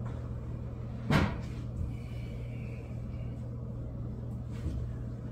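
A single sharp clunk about a second in from rummaging in a low kitchen cabinet, with a few faint knocks after it, over a steady low hum.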